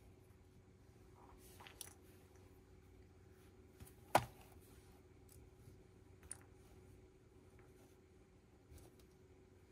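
Plastic Lego bricks being handled and pressed together: a few scattered clicks, the sharpest one about four seconds in.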